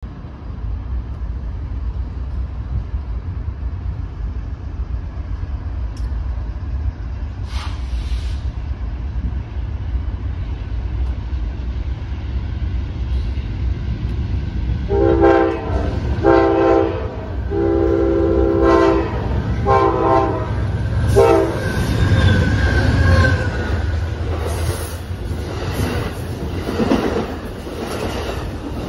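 Amtrak Southwest Chief passenger train: a steady low rumble, then about halfway through the locomotive's horn sounds five blasts, two short, one long and two short, followed by the train passing with wheel and rail clatter and a high squeal.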